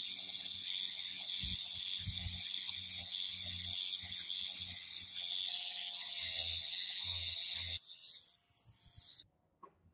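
Electric toothbrush with a round oscillating head running steadily while it scrubs a small plastic toy-car part clean, with dull knocks from the part being handled. The buzz drops in level about eight seconds in and cuts off a second or so later.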